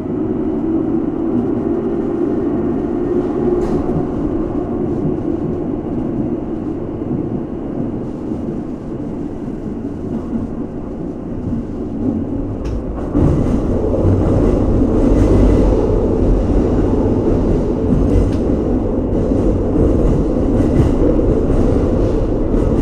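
Keihan 2200 series electric train heard from inside the car while running through a tunnel: a steady rumble of wheels on rail with motor hum. About halfway through it grows louder and deeper, with a few light clicks.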